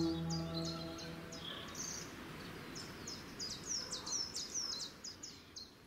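Sustained ambient-music tones fade out about a second in, leaving birdsong: quick, repeated high chirps that fade away toward the end.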